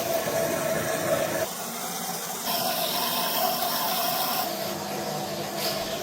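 LG front-load washing machine running with water flowing through it: a steady hiss and hum that shifts in tone a few times.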